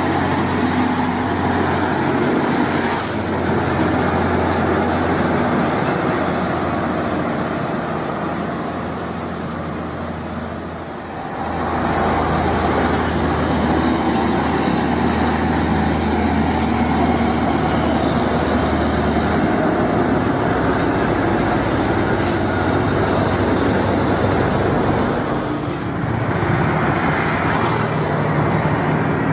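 Heavy diesel trucks passing close by on a road: a steady low engine drone with tyre and road noise. The sound changes abruptly about eleven seconds in and again near the end as one passing truck gives way to the next.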